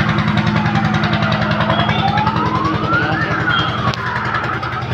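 A motor or engine running steadily with a fast, even pulse. A thin whistling tone glides down, up and down again over it.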